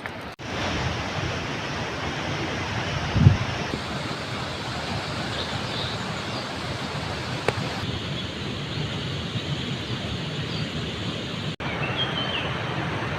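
Wind rushing and buffeting the microphone, with a heavier low gust about three seconds in. A few faint high chirps come through the noise.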